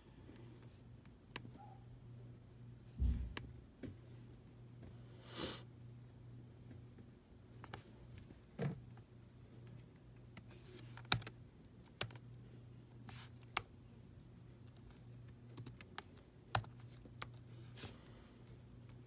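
Sparse key clicks of typing on a laptop keyboard, spaced irregularly, over a faint steady hum, with a dull thump about three seconds in.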